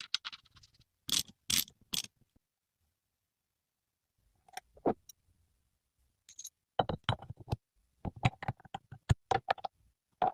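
Scattered sharp knocks and clicks of hand work on metal parts, coming in small clusters with quiet gaps between them.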